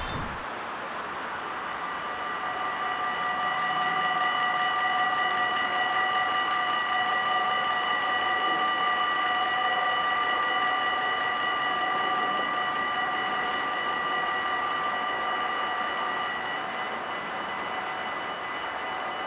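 Electronic warning bells of a Dutch level crossing, ringing steadily with several bright tones as the crossing closes for an approaching train. One of the tones drops out near the end.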